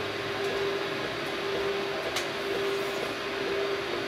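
3D printer running mid-print: a steady hum with faint regular ticking over a haze of fan noise.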